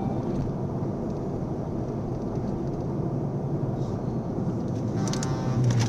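Steady low rumble of tyre, engine and wind noise heard from inside a car driving on a highway, with a few sharp clicks about five seconds in.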